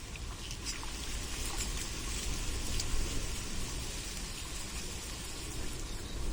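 Steady outdoor water ambience: a soft, even patter or trickle with scattered small drip-like ticks, over a steady low rumble.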